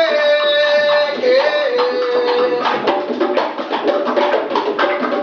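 Live Latin band playing son/salsa: a melody holds two long notes, the second a little lower, over busy hand-drum and drum-kit percussion and an upright bass line.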